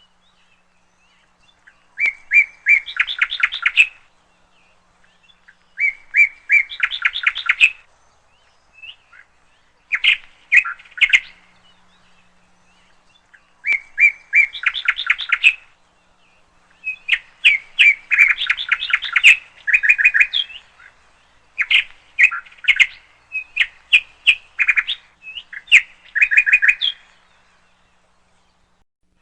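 A bird calling in bursts of rapid, chattering notes, each burst one to three seconds long and repeated every few seconds, with short pauses between.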